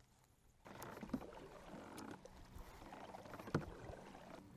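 Kayak paddling: the paddle blades dip and splash through the water, starting about half a second in. Two sharp knocks, a light one about a second in and a louder one about three and a half seconds in.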